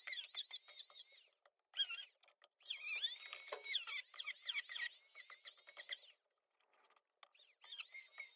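Electric hand planer cutting across a wooden board panel: a high-pitched motor whine that spins up, holds, and dips in pitch under load, with rattling clicks as it cuts. It stops and starts several times, with a pause of about a second near the end.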